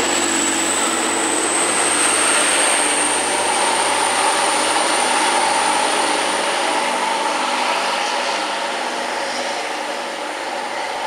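First TransPennine Express multiple-unit passenger train running along the rails and drawing away, with a high whine that rises slightly in the first couple of seconds and then holds steady. The sound fades gradually over the last few seconds as the train recedes.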